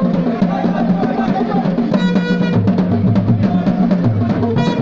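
Fast drumming with dense, repeated beats, joined twice by a short held pitched note, about two seconds in and again near the end.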